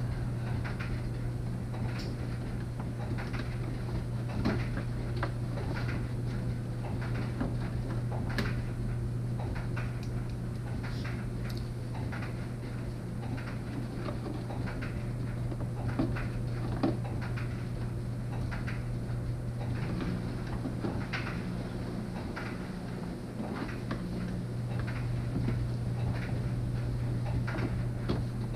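Plastic wheel-well liner of a C6 Corvette being worked loose by hand, with scattered clicks, knocks and rustles as its fasteners and plastic clips are undone, over a steady low hum.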